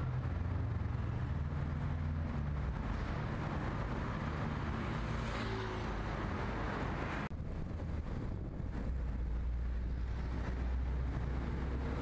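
Road traffic on a busy city street: a steady low rumble of engines and tyres with a low hum underneath, broken by an abrupt cut about seven seconds in.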